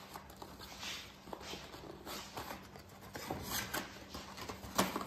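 Irregular light clicks, taps and rustles of small household items being handled, with the strongest knock near the end, over a faint steady hum.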